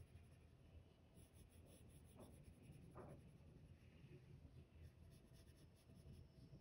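Faint scratching of a Prismacolor colored pencil shading on paper in short, repeated strokes.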